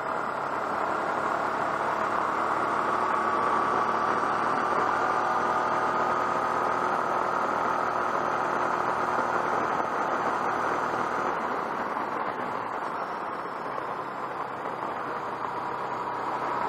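Motorcycle underway on the open road: steady wind rush over the camera with the engine's drone underneath. About eleven seconds in, the low engine note drops away and the sound eases for a few seconds before building again.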